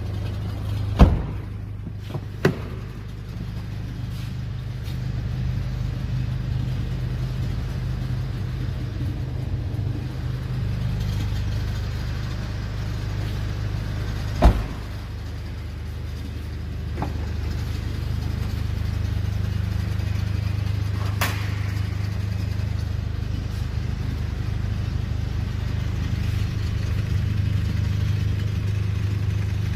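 2002 Hyundai Santa Fe's 2.0-litre turbo diesel engine idling steadily, with a few sharp knocks and clicks from its doors being handled. The loudest knocks come about a second in and midway through.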